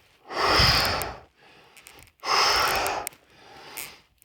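Heavy breathing blown straight into a microphone held close to the mouth: two loud, rushing breaths about a second long each, with quieter breaths between them.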